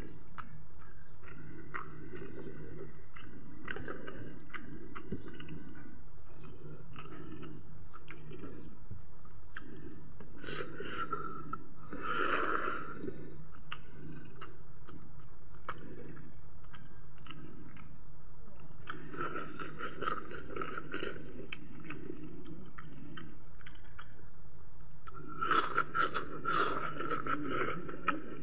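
Close-up chewing and crunching of a fried chicken leg, with wet mouth sounds and small clicks, and a few loud breathy rushes of air now and then.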